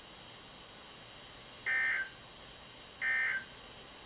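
EAS end-of-message data bursts: two short, identical buzzy digital bursts about 1.3 seconds apart, the code sent when a weather warning broadcast ends.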